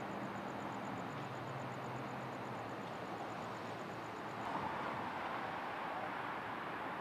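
Steady background traffic noise, a wash of passing road vehicles. About four and a half seconds in the sound changes and the wash grows slightly louder.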